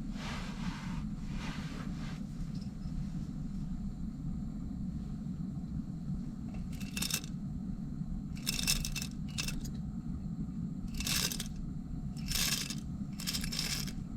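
About six short bursts of scraping, rustling handling noise in the second half, over a steady low rumble.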